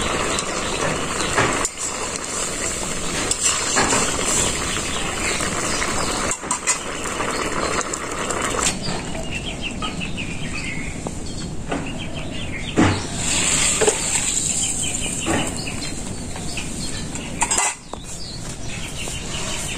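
Chickens clucking several times, mostly around the middle, over a steady hiss with a few sharp knocks.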